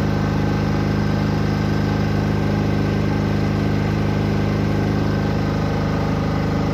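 6.5 kW diesel backup generator running steadily at a constant speed, an even engine hum with a fine regular pulse.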